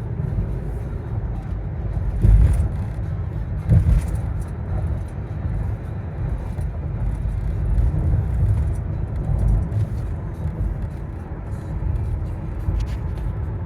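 Low, steady vehicle rumble, with two louder thumps about two and four seconds in.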